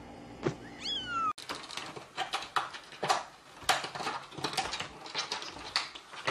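A cat gives one meow that falls in pitch, about a second in. Then come several seconds of irregular knocks and clatters as a cat squeezes through a plastic cat-flap door, the flap rattling against its frame.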